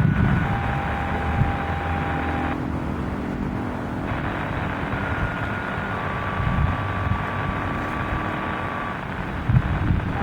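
Wind buffeting the microphone, with a low rumble underneath and a few faint, thin steady tones that change pitch every few seconds.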